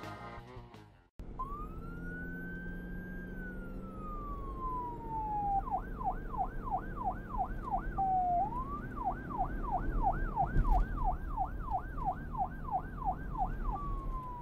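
Music ends and drops out briefly. Then a police car siren sounds: a long wail rising and slowly falling, then a fast yelp of about three cycles a second, a short wail, a longer yelp run and a falling wail near the end, all over a low vehicle rumble. A single thump comes about ten seconds in.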